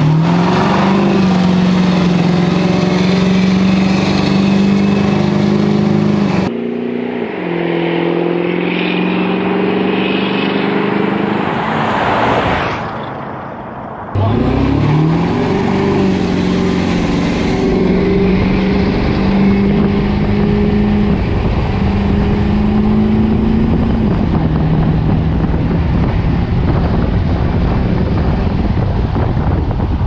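Ford Power Stroke diesel pickup engines, a 7.3L and a 6.4L, at full throttle in a side-by-side drag race. The engine note sweeps up, holds, and steps down at shifts, with a quieter stretch near the middle before it climbs again.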